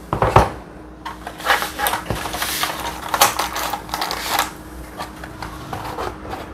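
Eggs and egg cartons being handled on a kitchen counter: a quick run of light clicks, taps and rustles for about four and a half seconds, then softer handling, over a steady hum.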